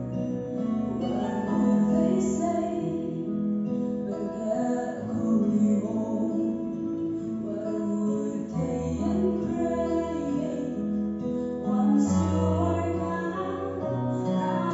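A woman singing solo into a microphone, with instrumental accompaniment underneath.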